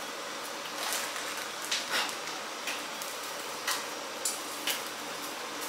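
Seasoning being shaken from a small spice jar with a sifter top: about seven short, dry rattles at an uneven pace, over a faint steady hiss.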